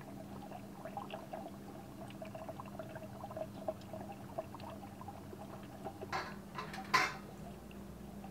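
Faint bubbling and popping of hot, freshly pressure-canned mason jars of sloppy joe mix in the opened canner, over a steady low hum. Two sharper clinks come about six and seven seconds in.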